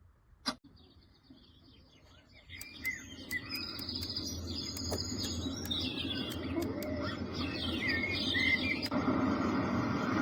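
A moon-lamp alarm clock's sound machine playing a recorded birdsong nature sound: a click, then, from a couple of seconds in, many birds chirping and twittering over a soft hiss. Near the end it switches abruptly to a steady rushing noise.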